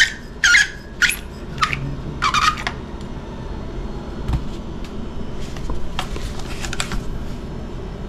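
Clicks and rattles of the plastic and metal stock parts of an airsoft M4 rifle being handled and pulled off the buffer tube. There are a few sharp clicks in the first two and a half seconds, then fainter taps over steady background noise.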